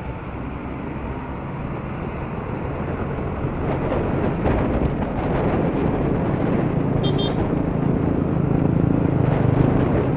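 Stock Yamaha Aerox 155's single-cylinder engine running under way with road and wind noise, heard from the rider's seat. It grows louder from about four seconds in as the scooter picks up speed. A few short high beeps sound about seven seconds in.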